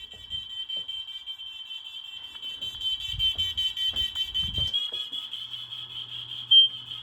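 Smoke detector's alarm horn sounding a continuous piercing high-pitched tone, set off by aerosol test smoke sprayed into it.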